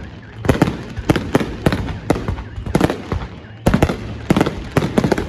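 Fireworks display: aerial shells bursting in a rapid series of sharp bangs, several a second in clusters, over a continuous low rumble.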